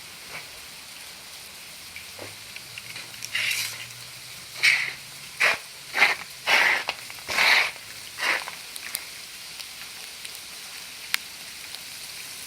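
Steady hiss of sleet falling and ticking on the ground and on the recording device. Between about three and eight seconds in comes a run of about seven louder, short noisy bursts.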